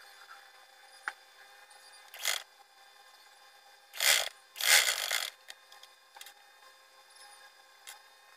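Vintage Singer sewing machine stitching in short bursts: three brief runs of a few stitches each, about two, four and five seconds in, the last the longest, with light clicks between them.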